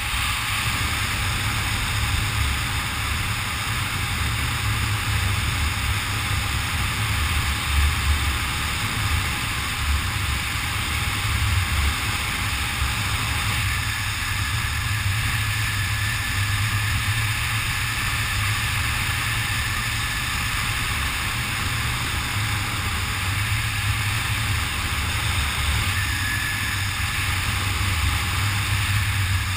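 Steady wind rushing and buffeting over the camera's microphone during a descent under an open parachute, mostly a low rumble.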